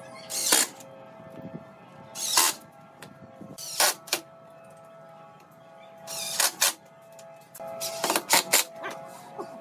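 Makita cordless impact driver driving screws into wood in about five short bursts, the last a quick run of several, over steady background music.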